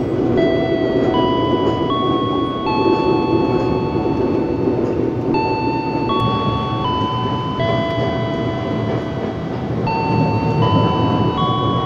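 KRL electric commuter train running, heard from inside the carriage as a steady rumble. Over it a slow chime-like melody of held notes steps up and down in a short phrase that repeats every few seconds.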